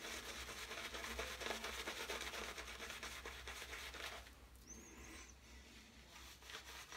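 PAA Peregrino shaving brush working lather over a bearded face: a faint rubbing and swishing of bristles and foam against the skin, growing quieter about four seconds in.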